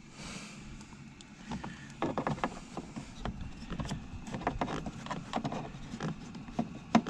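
Irregular light clicks and knocks of hands working on a car's interior door trim panel, with a sharper knock near the end.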